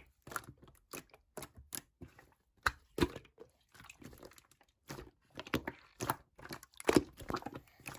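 Irregular sharp clicks and crackles close to the microphone, a few each second, with short quiet gaps between them.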